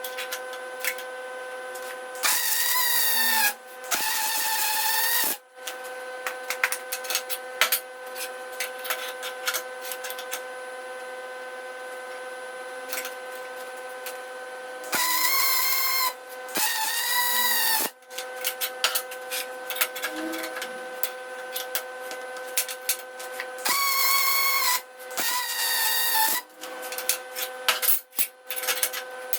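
Three pairs of short tool bursts, each about a second long, over a steady humming of several even tones.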